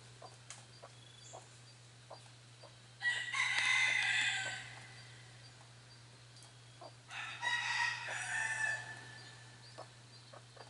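A rooster crowing twice, each crow lasting about a second and a half, the second starting about four seconds after the first.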